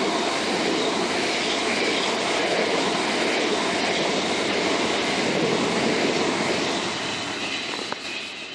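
Southern Class 377 Electrostar electric multiple unit passing through the station, wheels running loudly on the rails, then fading from about seven seconds in as it moves away. A single sharp click near the end.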